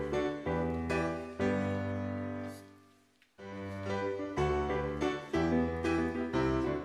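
Background piano music; it dies away about three seconds in and picks up again a moment later.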